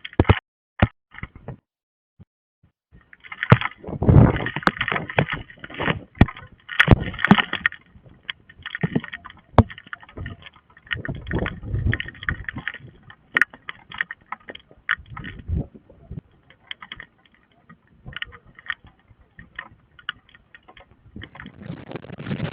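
Storm wind gusting against the microphone in irregular, rumbling blasts, broken by short quiet gaps and scattered sharp clicks and knocks.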